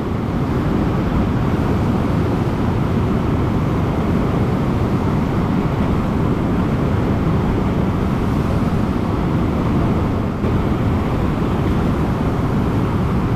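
Whitewater river rapids rushing steadily at close range, a loud low-pitched noise of churning water, with a brief dip about ten seconds in.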